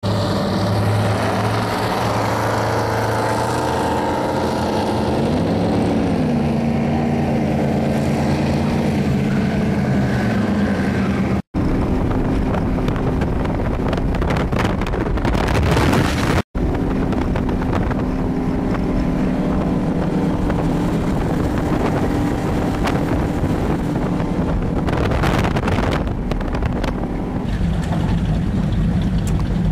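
High-performance offshore powerboat engines running at speed, with wind buffeting the microphone. For the first ten seconds a passing boat's engine note rises and falls in pitch, then the sound settles into a steady engine drone, broken by two brief dropouts.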